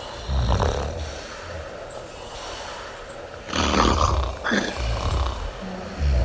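Women snoring loudly in their sleep: a run of uneven snoring breaths, the loudest about three and a half seconds in.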